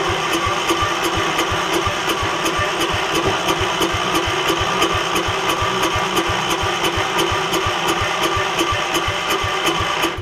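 Gravely 5665's engine being cranked by its electric starter, turning over with even compression pulses about four a second without catching, then stopping about ten seconds in. It is typical of an engine flooding with fuel from a failed fuel pump.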